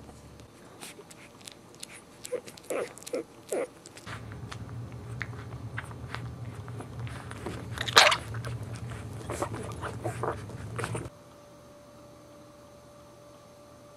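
Newborn Boxer puppies suckling at their mother, with many small wet smacks and clicks and a few short squeaks a few seconds in. One sharp, louder click comes about eight seconds in.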